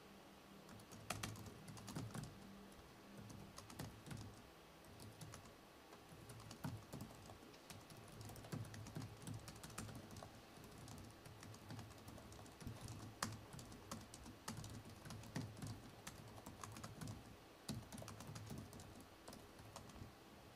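Faint typing on a laptop keyboard: irregular runs of key clicks with short pauses between them.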